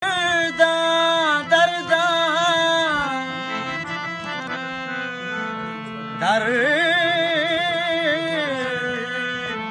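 Balochi ghazal sung by a male voice in long, wavering held notes over a harmonium's steady reed drone. The voice drops out from about three to six seconds in while the harmonium plays on, then comes back in with a rising slide.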